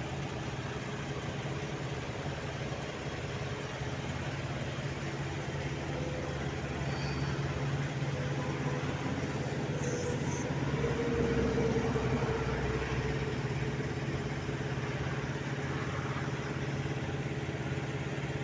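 Parked Kenworth semi-truck rig with a refrigerated trailer idling: a steady, low diesel hum.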